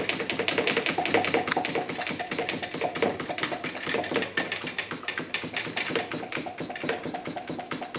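Hand pump worked rapidly on the OneDerBrew fermenter's port through a red hose, a fast continuous run of clicking strokes. It is being pumped about 40 times to draw the clear top down onto the greased gasket.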